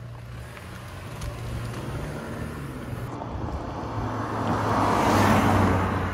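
Toyota Camry engine running at low speed as the car pulls away, with a swell of engine and tyre noise as it passes close by about five seconds in.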